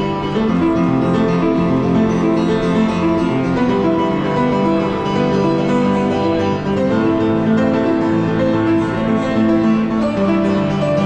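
Upright piano played live: a slow piece of held chords and melody notes, each ringing on and overlapping the next.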